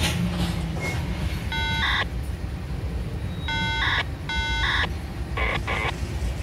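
CSX freight train's diesel locomotive rumbling past at low speed. Short, high electronic beeps sound over it several times: once a little before the two-second mark, twice around the four-second mark, and twice more, shorter, near the end.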